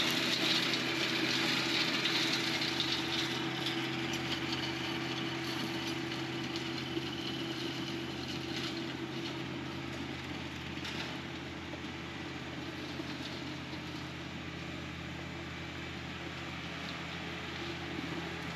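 John Deere 1025R compact tractor's three-cylinder diesel engine running with its PTO-driven offset flail mower engaged, a steady engine hum over the mower's noise. It fades gradually as the tractor drives away.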